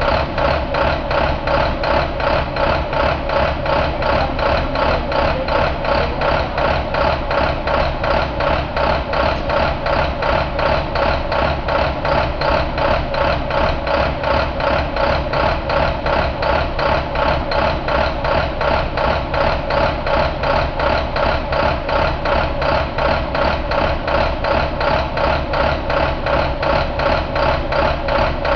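International MaxxForce DT inline-six turbo diesel engine running steadily on a test stand, with an even pulsing beat that stays unchanged.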